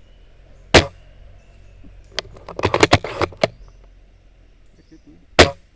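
Airsoft guns firing: one sharp crack about a second in, a quick string of cracks around three seconds, and another loud crack near the end.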